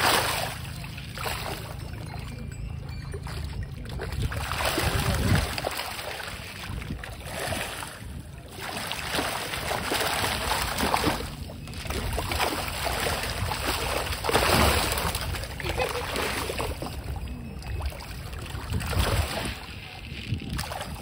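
A dense swarm of orange-tailed carp in a feeding frenzy, thrashing and splashing at the water's surface as food lands among them. The splashing comes in surges every few seconds.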